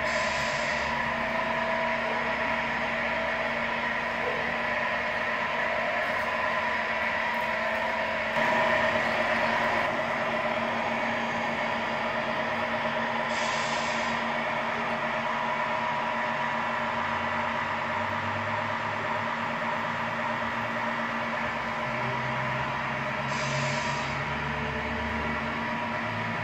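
Simulated truck diesel engine sound from the MFC-01 sound unit of a 1/14 Tamiya Scania R620 RC truck, running steadily as the model drives. Three short hisses come through: one at the start, one about halfway and one near the end.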